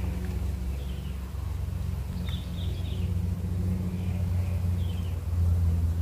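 A steady low rumble that grows louder about five and a half seconds in, with short high bird chirps about four times.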